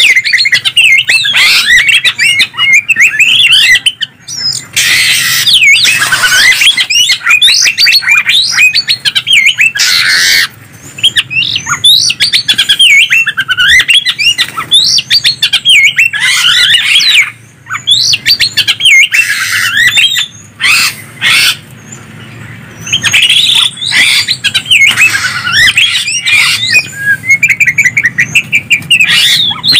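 Greater green leafbird (cucak ijo) and oriental magpie-robin (kacer) song: loud, near-continuous rapid whistled and chattering phrases, broken by several short harsh, noisy bursts and brief pauses.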